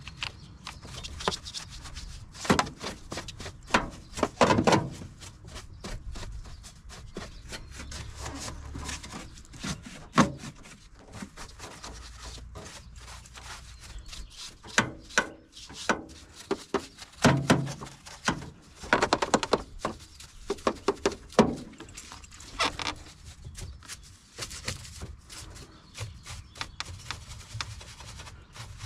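Irregular knocks, clicks and rubbing of objects being handled, in clusters, with a few louder knocks.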